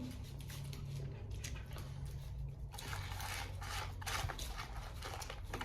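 Eating sounds close to the microphone: soft chewing and the crinkle of fast-food packaging, in irregular short crackles, over a low steady hum.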